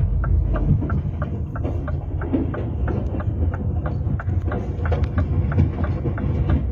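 Truck engine idling with a steady low rumble, and a regular light clicking about three times a second over it.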